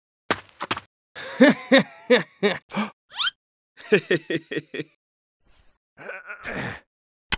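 Cartoon character vocal effects: a quick run of short, chirpy nonsense syllables with a rising squeak about three seconds in, then a breathy sound and a sharp click near the end.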